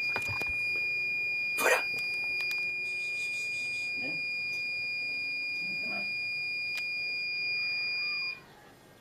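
Buzzer of a homemade laser-beam barrier with an LDR sensor, sounding one steady high-pitched tone while the beam is blocked, then cutting off suddenly about eight seconds in as the beam reaches the sensor again. A short bump about two seconds in.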